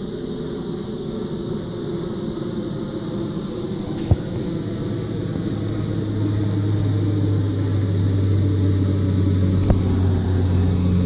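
A steady engine drone that grows louder from about halfway through, with three short sharp clicks over it.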